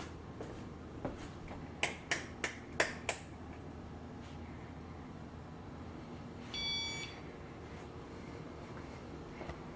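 Many ceiling fans running together with a steady low hum. A quick run of five sharp clicks comes about two seconds in, and a short electronic beep sounds about two-thirds of the way through.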